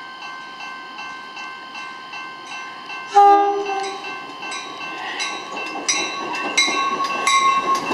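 Metra commuter train approaching, cab car leading: a short horn blast about three seconds in, over a bell ringing steadily about one and a half strikes a second. The bell and the train's running noise grow louder as it nears.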